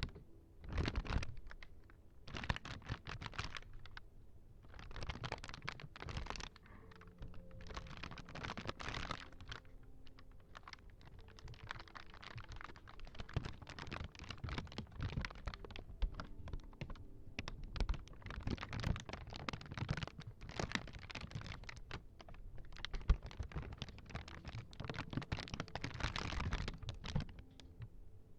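Rapid close-miked clicking, tapping and scratching on small ASMR props, coming in bursts of a second or two.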